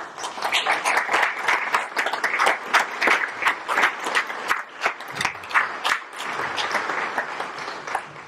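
Audience applauding, with sharp individual claps standing out above the general clapping; the applause dies away near the end.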